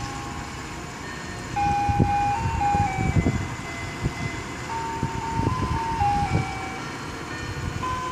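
Ice cream truck playing its jingle, a simple electronic chime melody of single clear notes stepping up and down, over a low rumble that swells and fades.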